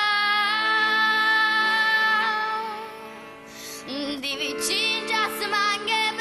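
A young woman singing a slow, tender song solo into a microphone. She holds a long note with vibrato, takes a breath, then starts a new phrase, over a quiet held backing.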